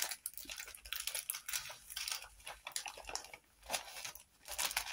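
Small plastic bags of diamond-painting drills crinkling and rustling as they are handled, in soft irregular crackles with a couple of louder ones near the end.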